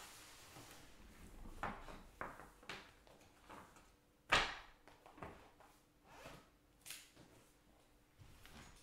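Trading cards and card supplies being handled and sorted on a table: scattered light clicks, slides and rustles, with one louder knock about four seconds in.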